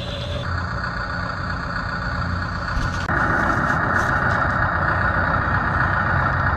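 1/20-scale RC construction machine running steadily, growing clearly louder about three seconds in.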